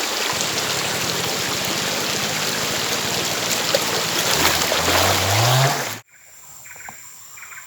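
River water rushing steadily, with a low tone rising in pitch over its last second or so; it cuts off abruptly about six seconds in, leaving a much quieter background.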